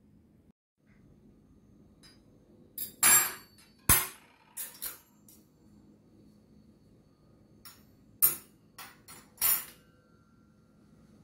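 Tableware being set down on a hard countertop: sharp clinks and knocks of plates and cutlery, in a burst of several about three seconds in and another about eight seconds in, the last leaving a brief faint ring.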